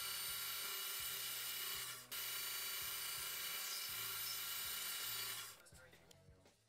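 Proxxon micro drill press spinning a fine bit at high speed with a steady high-pitched whine while drilling a small hole. There is a brief dip about two seconds in, and the drill stops a little before the end.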